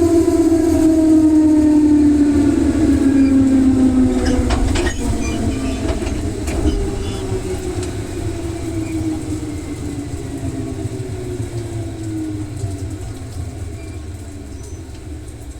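Electric train's traction motors whining in a steadily falling pitch over a low running rumble as the train slows, the sound fading as it goes. A few sharp clicks come around a third of the way in.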